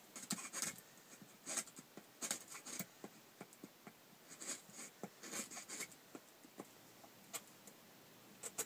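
Light, irregular scratching and rustling as hands handle and scrape small wooden bow-drill parts, in short clusters of ticks with quiet gaps between.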